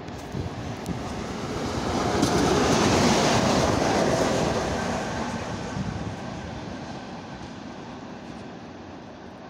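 A ChS4 passenger electric locomotive running light past at close range, with wheel and rail noise. It builds to its loudest about three seconds in, as it goes by, then fades away.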